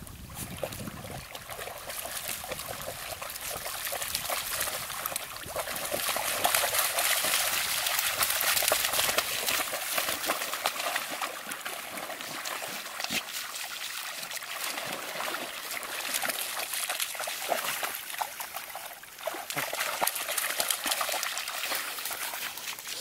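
Two border collies wading through shallow water, their legs splashing and sloshing it in a steady crackle of small splashes that is loudest about a third of the way in.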